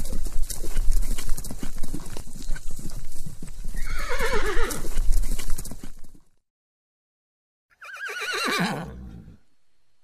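A horse whinnying twice, each a quavering call falling in pitch, about four seconds in and again near the end. Over the first six seconds a clatter of hoofbeats runs under it, then stops.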